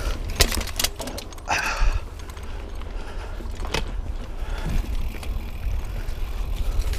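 Mountain bike ridden over a rough, root- and rock-strewn trail: irregular sharp knocks and rattles from the bike over a steady low rumble on the microphone, with a brief hiss about one and a half seconds in.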